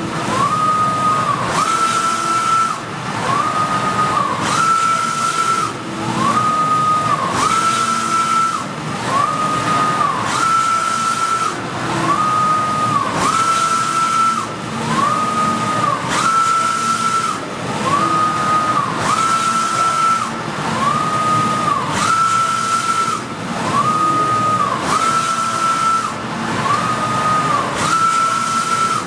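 Softjet-K wide-format inkjet printer printing, its print-head carriage shuttling back and forth across the media: a whine that rises at the start of each pass, holds steady and drops at the end, about one pass every second and a half, the pitch alternating slightly from pass to pass. Under it runs a steady hiss that swells with each pass.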